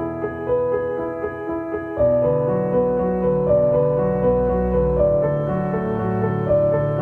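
Background music led by piano, with held notes; a fuller low accompaniment comes in about two seconds in.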